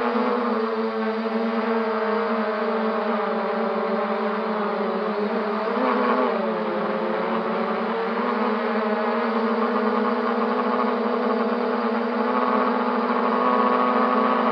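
MJX Bugs 3 quadcopter's brushless motors and propellers whining steadily in flight, with a brief wobble in pitch about six seconds in as the throttle changes.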